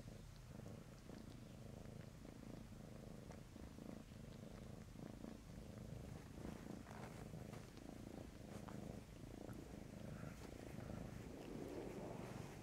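A tabby cat purring faintly, with a low rattle pulsing in a steady rhythm.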